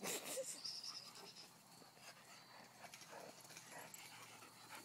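A dog panting faintly, with a short noisy burst right at the start and a brief high-pitched squeak about half a second in.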